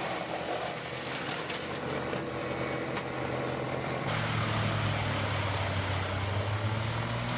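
Large industrial wood chipper's engine running steadily, a continuous mechanical hum with no chipping impacts. About four seconds in, the sound changes abruptly to a louder, lower hum.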